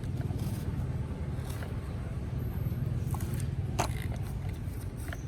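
Toy trucks being handled: scattered light clicks and scrapes over a steady low rumble, with the clearest click nearly four seconds in.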